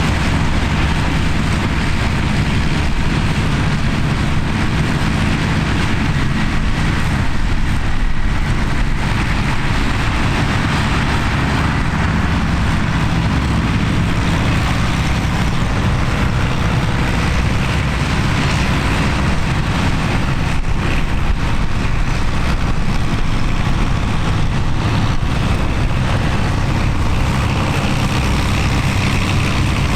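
Vintage tractor engine running steadily, a low even rumble with no change in speed.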